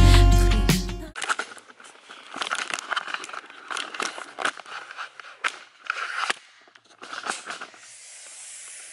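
Background music that cuts off abruptly about a second in, followed by quiet, irregular rustling, crinkling and light clicks of the camera being handled and moved.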